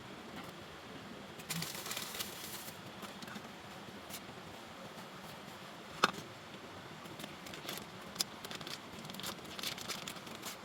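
Handling noises: rustling and crackling with scattered small clicks, a denser rustle near two seconds, and one sharp knock about six seconds in.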